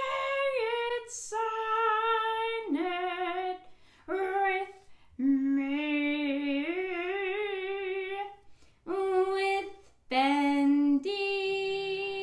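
A woman singing a simple children's song unaccompanied, in short phrases with several long held notes sung with a wavering vibrato.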